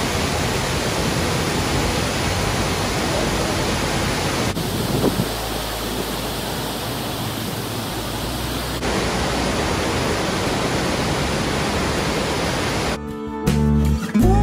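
Burney Falls waterfall: a steady rush of falling water. For a few seconds in the middle it cuts to a softer, duller rush, then comes back full. Acoustic guitar music comes in near the end.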